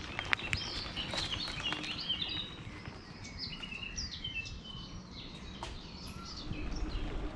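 Woodland birds singing, a run of short chirps and trills, with scattered small clicks and rustles in the first couple of seconds.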